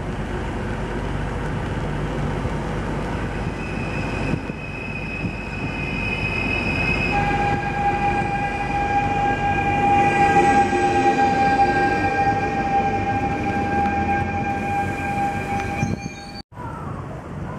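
Stadler FLIRT electric multiple unit moving past along the platform, with a rumble of wheels on rail and steady whining tones. A high whine starts a few seconds in and a stronger, lower whine joins at about seven seconds. The sound is loudest around ten seconds and cuts off abruptly near the end.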